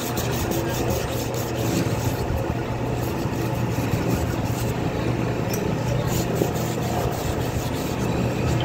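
Emery cloth rubbed by hand in quick repeated strokes around the mouth of a steel hydraulic cylinder barrel, over a steady low hum.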